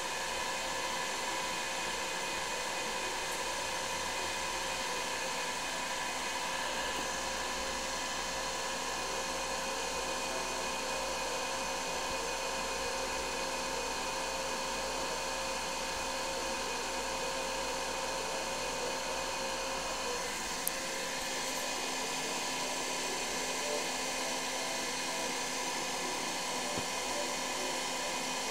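Plasma vacuum chamber equipment running: a steady whirring hiss with a few steady hums through it. About twenty seconds in there is a sharp click, the low rumble drops away, and the rest keeps running.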